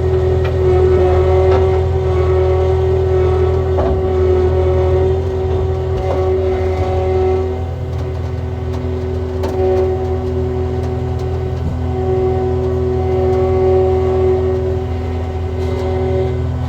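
A motor vehicle's engine running steadily with a deep hum, with a few brief knocks along the way.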